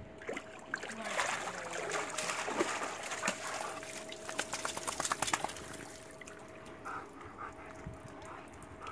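Water splashing and streaming off a Rottweiler as he climbs the pool steps and out of the water, with a patter of drips. It dies down after about five seconds.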